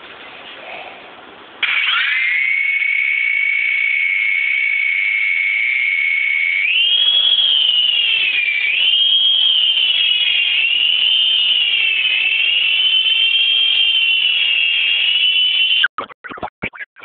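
Mini Cobra RC helicopter's small electric motor and rotors whining. It starts suddenly about a second and a half in and holds a steady pitch, then rises about seven seconds in and wavers up and down as the throttle varies. Near the end the whine cuts off into a few sharp clicks.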